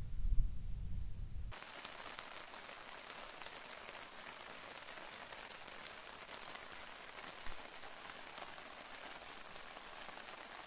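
A low rumble for about the first second and a half cuts off abruptly. It gives way to steady rain: an even hiss of many small drops.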